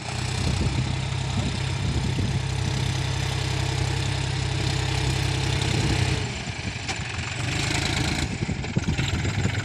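A John Deere farm tractor's diesel engine runs steadily while pulling a tillage implement. Its even low note weakens and turns rougher about six seconds in as the tractor turns.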